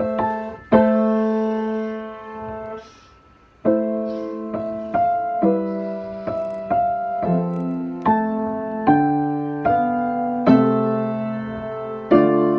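Piano sounds the A minor key chord, held about two seconds, then after a brief pause plays a harmonised melody in A minor, the example of a minor-key plagal cadence.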